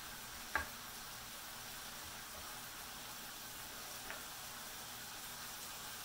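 Meat sizzling in a frying pan on a portable gas burner as it is stirred with a ladle, the ladle knocking sharply against the pan about half a second in and more lightly near four seconds.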